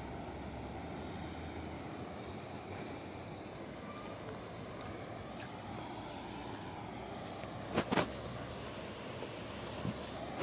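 Steady rushing noise of a flooded, fast-flowing river running past a broken concrete causeway. Two sharp knocks come close together about eight seconds in, the loudest sounds here, with fainter clicks near the end.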